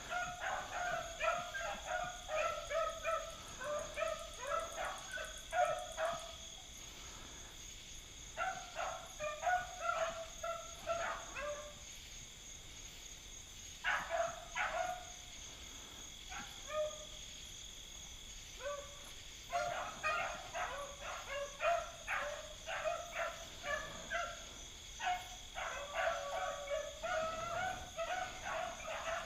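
A pack of beagles baying as they run a rabbit's scent trail, many short voices overlapping in bursts that drop out for a second or two several times and pick up again.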